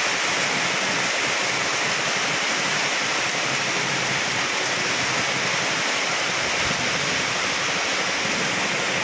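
Heavy rain pouring down onto a paved street, a steady, even hiss.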